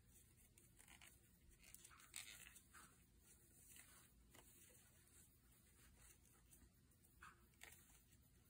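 Near silence, with a few faint, brief rustles and rubs of stretchy red sock-loop fabric cord being pulled through loops by hand in a chain stitch.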